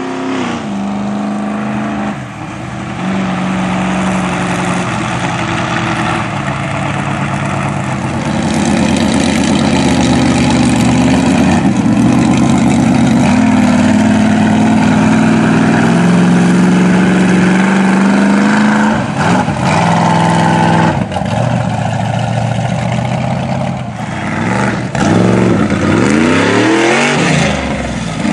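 Mega mud truck's engine revving hard, its pitch climbing and dropping again and again with the throttle as it drives, with a series of quick rev sweeps near the end.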